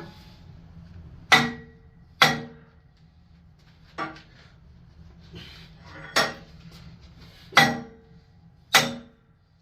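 Hammer blows on a metal workpiece clamped in a heavy combination bench vise: six sharp strikes at uneven intervals, each with a short metallic ring.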